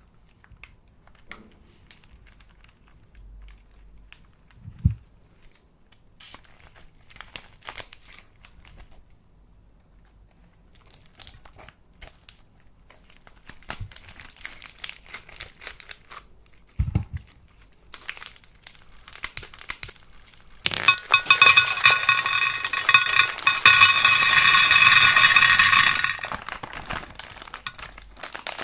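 Slime being worked by hand with scattered sticky clicks and crackles, then about 21 seconds in a loud, dense crinkling and crackling for about five seconds before it dies back.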